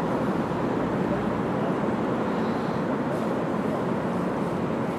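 Steady outdoor background noise, an even rushing hum with no distinct knocks, shouts or kicks.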